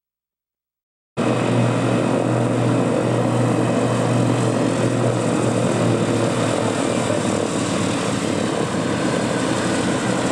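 Radial piston engines of a four-engine WWII bomber running with the propellers turning: a loud, steady drone that cuts in suddenly about a second in.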